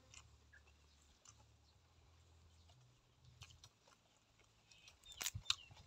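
Faint mouth sounds of a person chewing food, with a short cluster of crisp clicks about five seconds in.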